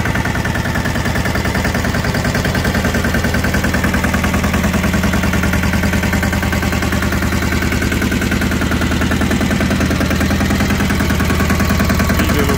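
Two-wheel hand tractor's engine running steadily with a rapid, even chugging beat.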